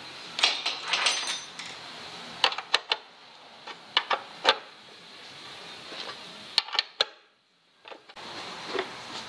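Irregular metallic clicks and taps of a hand tool on the cover screws and casing of a Chaise Vega stationary engine as a crankcase cover is fitted and tightened, with a short break of silence about seven seconds in.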